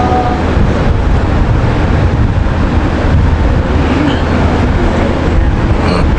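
Loud, steady low hum and hiss from an old, noisy recording, with no recitation audible through most of it. A long held recited note ends just after the start.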